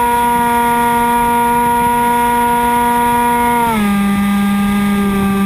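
Hawk Sky RC plane's electric motor and propeller whining steadily in flight. About three and a half seconds in, the pitch slides down and settles lower as the motor slows.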